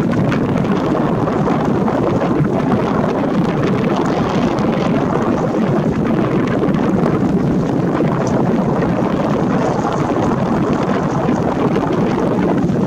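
Loud, steady wind noise buffeting a camera's built-in microphone that has no foam windscreen, covering everything else.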